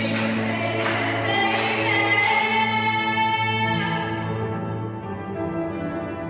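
Live music: a girl singing with a chorus over piano accompaniment, holding a long note. The voice breaks off about four seconds in and the accompaniment carries on.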